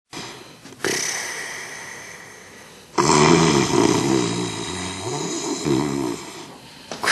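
A woman snoring: a long breathy, hissing draw of air, then a rattling snore with a wavering pitch lasting about three seconds, and the next breath starting near the end.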